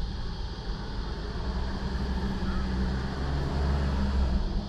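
Car engine idling with the air-conditioning fan blowing, heard inside the cabin: a steady low hum under an even hiss.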